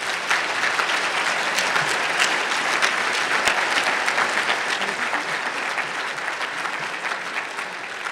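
Audience applauding, many hands clapping steadily, easing off slightly near the end.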